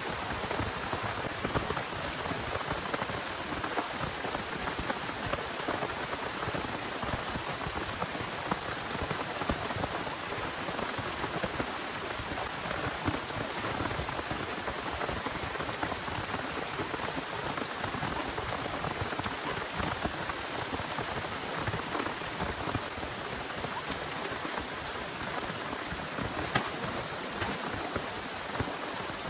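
Heavy rain falling steadily, the hiss of the downpour dotted with many small close drop hits.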